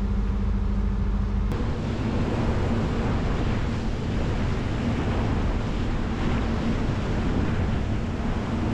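A boat's inboard engines running with a steady drone, changing abruptly about a second and a half in to the rush of wind and water as the trawler moves, with a low engine rumble underneath.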